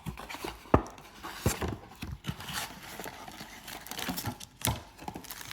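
A cardboard trading-card blaster box being handled and opened on a table: irregular knocks, taps and scrapes with short bursts of cardboard and wrapper rustle as the packs are taken out.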